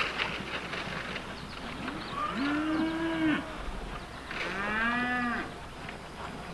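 Cattle mooing: two long calls, one a couple of seconds in and another about a second later, each rising and then falling in pitch.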